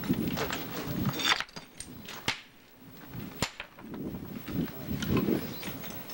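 Indistinct low voices, with three sharp knocks about a second apart from masons' tools striking stone.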